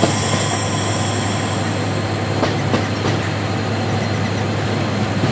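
Class 55 Deltic diesel locomotive heard from inside its cab while braking: a steady low engine drone. Right at the start a high-pitched brake squeal sets in suddenly and fades away over about two seconds. A few sharp clicks from the wheels on the track follow.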